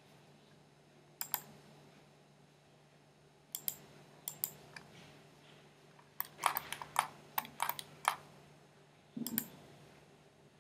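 Computer mouse and keyboard clicking in scattered, sharp clicks: a single click about a second in, a few more near four seconds, and a quick run of clicks between about six and eight seconds, over a faint steady low hum.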